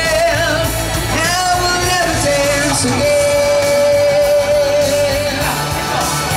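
Male vocalist singing live through a microphone and PA over a rock accompaniment. He holds long notes, the longest a lower note sustained for about three seconds in the middle.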